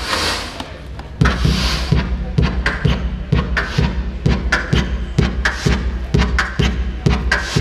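Electronic drum pattern from littleBits Synth Kits used as analog drum synthesizers, driven by control voltage from the Lego sliding-puzzle sequencer: low kick-like thumps about twice a second with snappier hits between. The low beat drops out at the start and comes back in about a second in.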